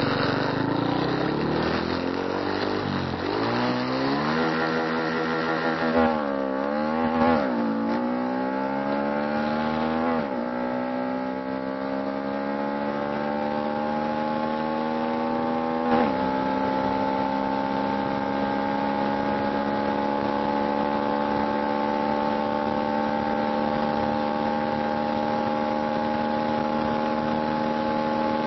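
Honda Dream motorcycle's single-cylinder four-stroke engine, bored out with a 53 mm piston on the stock stroke, accelerating hard through the gears: the pitch climbs and drops at each shift about five times, then holds steady at speed for the last twelve seconds. The owner says the engine has a worn, loose piston that pushes oil out of the exhaust.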